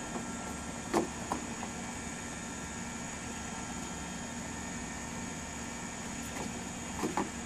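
Battery-powered toy bubble machine's fan motor running with a steady hum and hiss, with a few light knocks about a second in and twice near the end.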